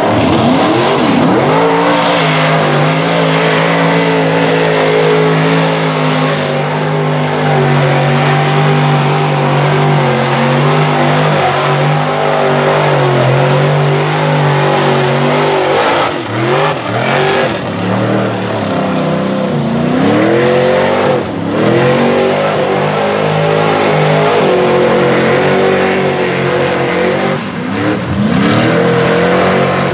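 Mud truck on tractor tires running its engine near full throttle as it churns through a deep mud pit, the pitch held high and steady for the first half. In the second half the revs drop and climb back three times.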